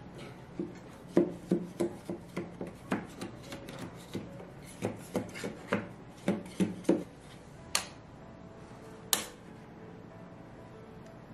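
A knife run around the inside of a metal springform cake pan to loosen a baked sponge cake: a run of short scrapes and taps against the pan wall. Two sharp clicks follow later.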